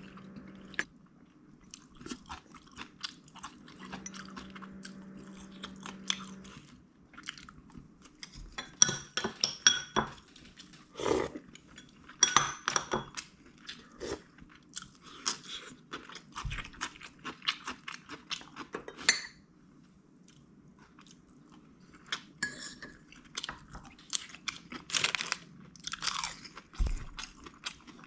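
A person chewing and crunching food close to the microphone, with irregular crunches and bites.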